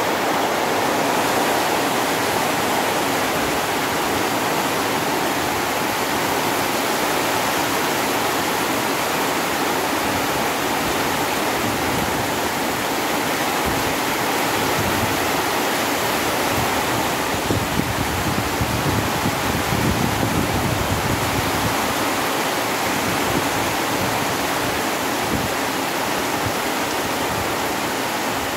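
Heavy tropical rain pouring steadily onto grass, trees and bamboo, a dense, even hiss, with a stretch of low rumbling a little past the middle.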